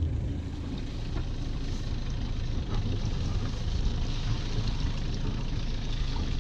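Boat engine running steadily, a low rumble with a wash of water and wind noise over it.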